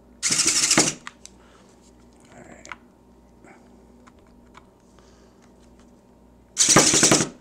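Hammerhead screwdriver driven against a stuck case screw on a battery pack in two short bursts, about a second in and near the end, each a loud, rapid chattering clatter as the bit fails to turn the screw out. Light clicks of handling in between.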